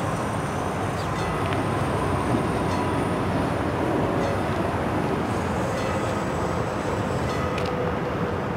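Approaching train on an electrified line running with a steady rumble, a few faint steady tones riding over it.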